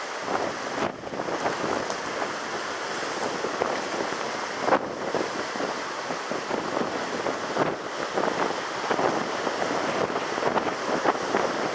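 Wind buffeting the microphone over the steady rush of sea surf, with a few louder surges about five and eight seconds in.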